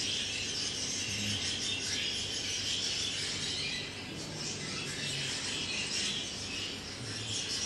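Faint, continuous bird chirping and chatter over a steady room hiss.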